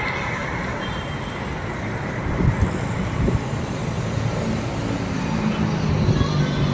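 Steady road traffic on a multi-lane highway: cars, trucks and motorbikes passing in a continuous rush of tyre and engine noise. A heavier vehicle's low engine hum grows in about five seconds in.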